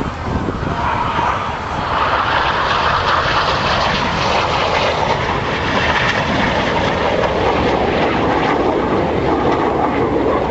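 BAE Hawk T1 jets flying by, a loud, steady jet noise that swells about two seconds in and then holds.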